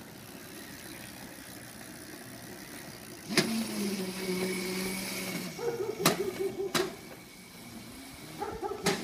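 Small Razor electric scooter's motor whining as it is ridden, a steady hum that starts with a sharp click about three seconds in and shifts higher a couple of seconds later, with a few more sharp clicks.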